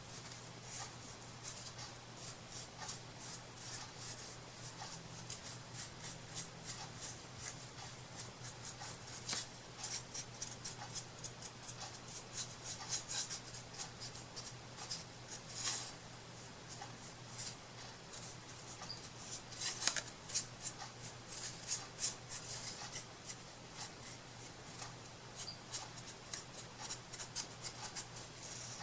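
Paintbrush stroking white acrylic paint onto a wooden craft piece: short, faint, scratchy brush strokes in irregular runs over a steady low hum.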